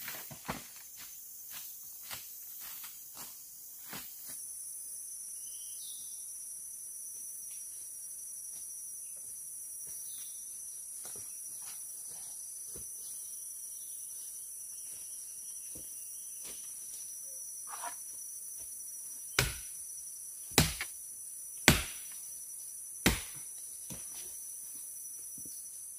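Four sharp chops of a large knife into a branch, about a second apart, near the end, over a steady high drone of forest insects. A few light snaps and clicks in the first few seconds.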